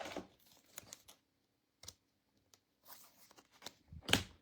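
Trading cards and pack wrappers being handled: scattered short rustles and clicks of cards sliding and packaging crinkling, with a louder rustle about four seconds in.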